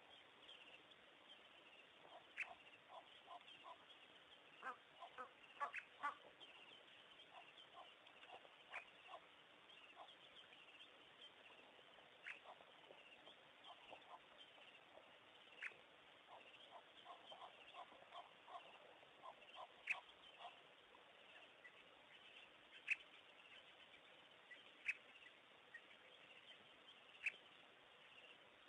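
Faint waterhole ambience with bird calls: runs of short repeated calls, about four a second, and scattered single sharp chirps over a steady low hiss.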